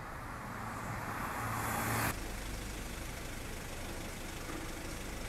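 Street traffic: a passing motor vehicle grows louder over the first two seconds, then the sound cuts off abruptly and gives way to a steadier low traffic rumble.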